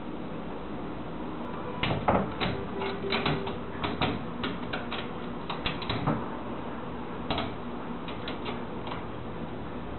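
A cat's claws hooking into and pulling at a screen door's mesh as it climbs, making irregular scratchy clicks and rattles of the screen. They come thick from about two seconds in to about six seconds, then only a few more, sparser ones.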